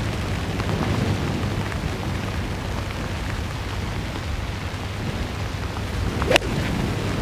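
Strong wind buffeting the microphone in a steady low rumble, with a single sharp club strike on the golf ball about six seconds in.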